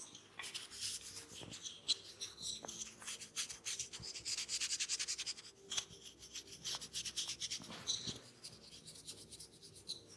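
Hands rubbing and working over a person's scalp and hair during a head massage, a quick run of rustling strokes that is fastest and strongest in the middle, with one sharp click about two seconds in.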